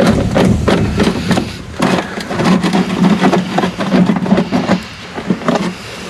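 Screwdriver clicking and scraping at a screw in a car's plastic wheel-well liner, a dense irregular run of sharp clicks close to the microphone.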